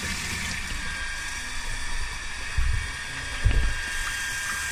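Half-horsepower automatic water pump running steadily with a constant whine while water flows from an open tap. Two dull low thumps come about two and a half and three and a half seconds in.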